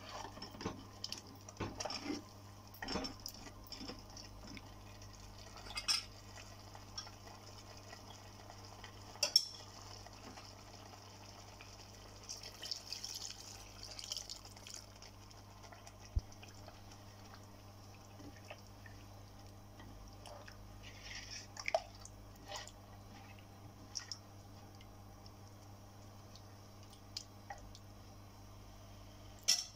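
Wooden spoon stirring thick curry in a clay pot, with scattered light scrapes and knocks against the pot, and liquid mutton stock poured in about halfway through.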